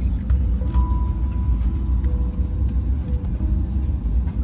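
Steady low rumble inside an Airbus A321neo's passenger cabin while parked at the gate before pushback, with a few faint held tones on top.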